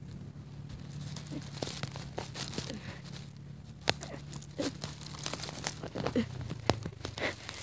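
Handling noise from a phone's microphone being moved and covered: rustling and scraping with scattered sharp clicks and knocks, the sharpest about four seconds in, over a faint low hum.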